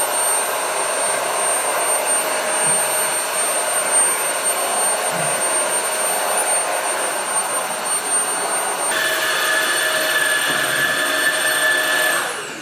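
Xiaomi Jimmy JV65 cordless stick vacuum running, with a steady rush of air and a high motor whine. About nine seconds in, the tone changes and new pitches join. Near the end the whine falls away as the motor is switched off and spins down.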